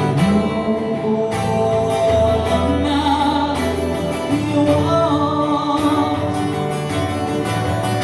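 Live band music: acoustic guitar strumming under long held, slightly wavering lead notes, with a steady bass underneath.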